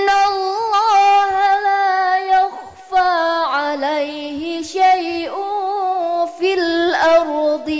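A single voice reciting the Quran in a slow, melodic tajwid style, drawing out long ornamented notes. There is a brief pause for breath about two and a half seconds in.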